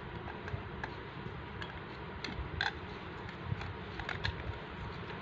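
Scattered light clicks and taps of hollow plastic toy vegetables knocking against each other and the plastic toy shopping cart as they are handled, the sharpest about two and a half seconds in and a few more around four seconds, over a steady low background hum.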